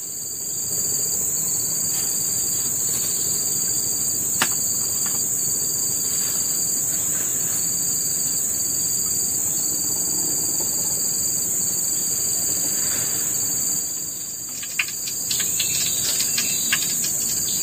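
A steady, high-pitched chorus of forest insects over an even rushing hiss, with a few sharp crackles and clicks, more of them near the end.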